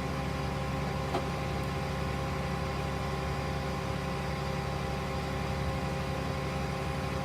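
A vehicle engine idling steadily, with a brief click about a second in.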